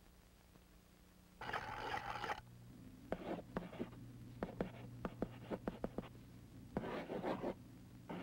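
Pencil-on-paper scratching: a scrape of about a second, then a run of quick, uneven taps and scratches, then another scrape near the end, over a low steady hum.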